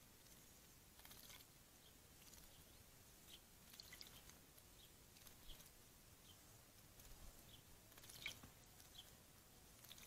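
Faint splashing of a blue tit bathing in a shallow dish of water: a scatter of small flicks and splashes, the strongest about eight seconds in.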